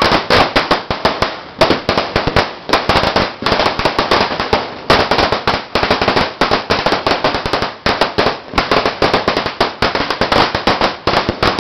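A string of firecrackers going off in a rapid, continuous rattle of sharp cracks, many per second without a break.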